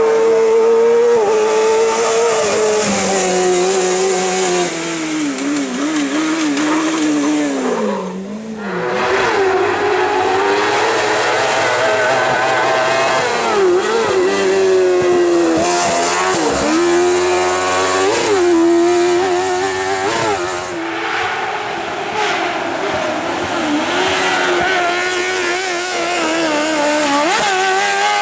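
Motorcycle-engined kart-cross buggy racing, its engine revving high and falling back again and again through gear changes and corners, easing off briefly about a third of the way in.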